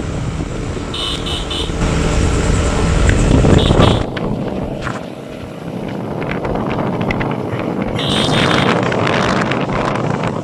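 Motorbike riding along a road, engine running under heavy wind rush. The low rumble drops away sharply about four seconds in, leaving mostly rushing wind and road noise. A few short high-pitched beeps sound about a second in and again near the end.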